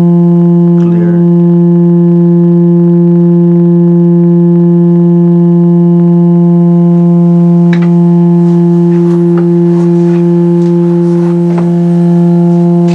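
Electrically heated Rijke tube, a 1-metre open-ended metal pipe with a glowing heating element inside, resonating with a loud, steady low hum and a stack of overtones. The heat drives the air column into its own resonance. A few faint clicks come through in the second half.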